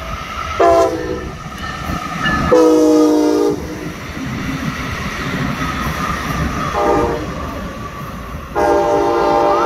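Brightline passenger train's Siemens Charger locomotive sounding its horn in four blasts, the third short and the last held longest. This is the long-long-short-long grade-crossing signal. Between the blasts the train runs past with a steady rumble and wheel clatter.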